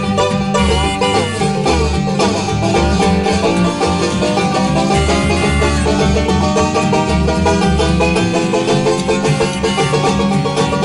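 A bluegrass string band playing live: banjo picking over acoustic guitar with a steady pulse of upright bass notes underneath.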